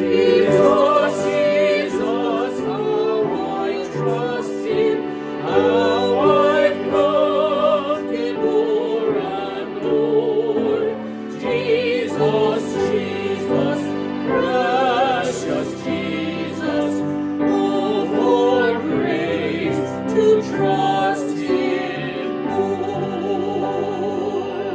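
Church worship music: a sung melody with wide vibrato over sustained keyboard chords.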